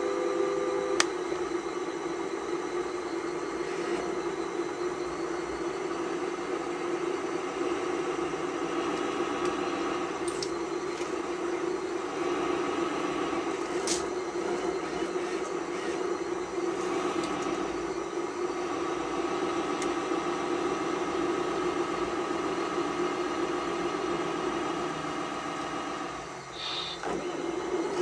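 Radio-controlled model semi-truck and bulldozer running: a steady mechanical drone from their motors and gearing as the truck pulls on a chain hitched to the dozer. A sharp click about a second in and another near the middle.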